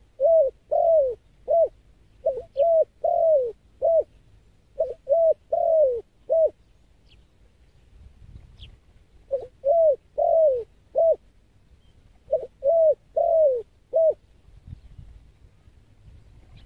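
Spotted dove cooing: five phrases of four or five arching coos each, with a pause of a few seconds after the third phrase.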